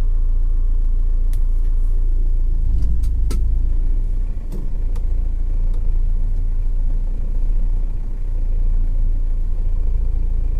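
Off-road SUV engine running as a steady low rumble, with a few sharp knocks over the first five seconds.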